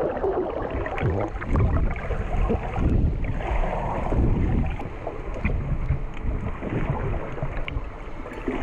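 Water sloshing and bubbling heard underwater: a muffled, uneven low rumble with scattered small clicks as a swimmer moves and dives.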